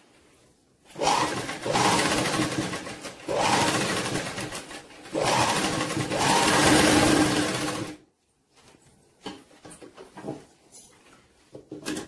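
Sewing machine running in three stretches, stitching the sleeve seam of a child's frock, stopping briefly twice and then halting. A few light clicks and knocks follow.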